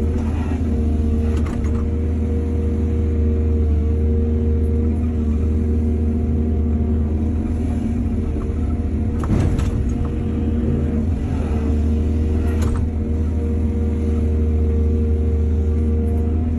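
Excavator's diesel engine running steadily with a constant low drone and a held tone above it, with a few short knocks and clanks, the strongest about nine and a half seconds in and another about three seconds later.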